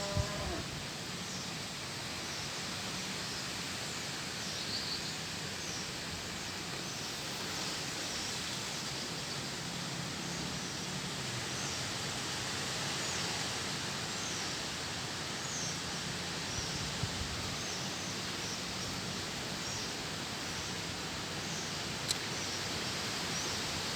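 Strong wind blowing with a steady rushing noise, and small birds chirping repeatedly over it. A single sharp click sounds near the end.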